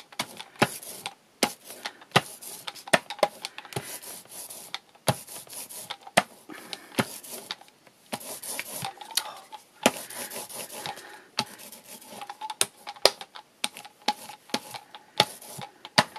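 Paint brayer rolling back and forth through tacky acrylic paint and gesso, a sticky rasping rub with many sharp clicks scattered through it.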